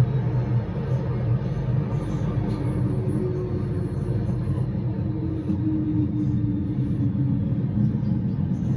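Interior of an MTR M-train electric multiple unit running: a steady rumble of wheels and running gear, with a motor whine falling slowly in pitch from about three to seven seconds in as the train slows alongside the platform.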